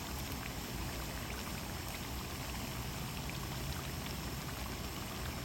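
Raw Sabah bananas frying in hot cooking oil: a steady sizzle with scattered small crackles, cut off abruptly at the end.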